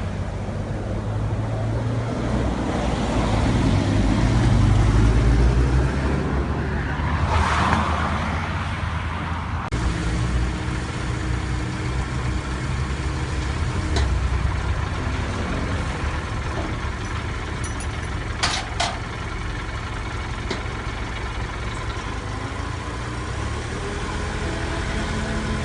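Road traffic: vehicle engines and tyres running past, with one louder pass about seven to eight seconds in.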